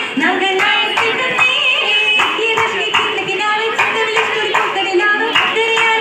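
Oppana performance: a group sings a Mappila song together while keeping time with rhythmic hand claps.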